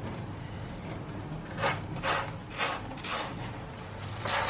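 A kitten scratching and digging in granular cat litter in a plastic litter box, a run of short scratchy rakes about two a second that starts about a second and a half in: covering its urine.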